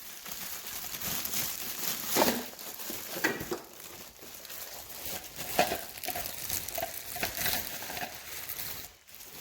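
Packaging crinkling and rustling, with scattered light knocks of hard plastic, as a slow juicer's body is unpacked and handled.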